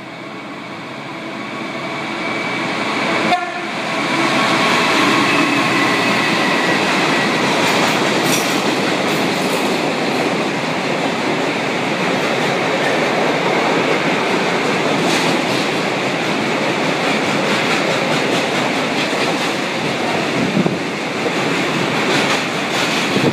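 A British Rail Class 66 diesel freight locomotive approaches with its horn sounding over the first few seconds, its level rising. It then runs through, and a long train of loaded steel-coil wagons rolls past with continuous wheel-on-rail noise and clickety-clack.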